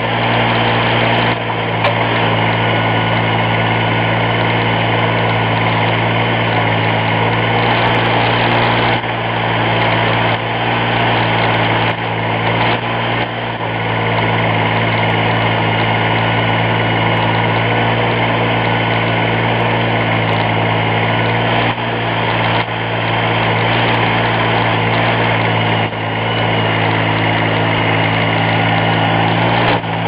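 Simplicity Legacy XL garden tractor engine running steadily while powering its backhoe attachment through a dig, with short dips in level every few seconds.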